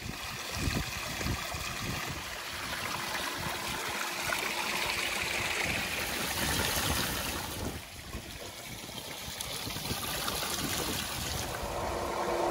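Water from a Flowclear filter pump's return jet splashing steadily into a stock tank pool, with the pump primed and pushing strong flow. Near the end the pump's steady motor hum comes up under the water.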